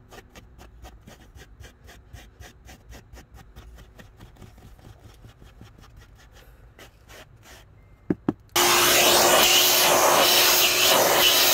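A Lilly Brush rubber pet-hair brush scraping across car floor carpet in quick short strokes, several a second, pulling up embedded dog hair. About eight seconds in come two clicks, and then a vacuum cleaner starts and runs loudly and steadily with a constant hum.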